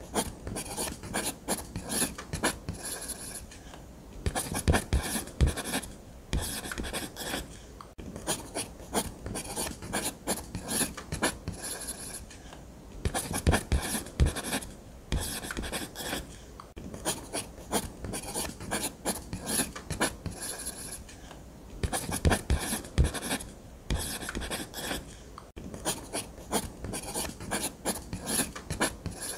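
Nataraj blue ballpoint pen drawing on paper: quick, irregular scratchy strokes in runs, with brief pauses every few seconds.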